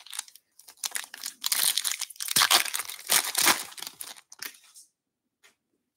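A 2023 Bowman Baseball hobby pack's foil wrapper being torn open and crinkled by hand: crackling and rustling that starts about half a second in and lasts about four seconds.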